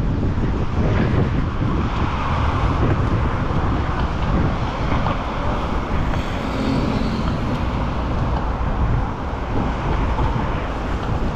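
Strong gale wind buffeting the microphone in constant low rumbling gusts, over an even rushing background.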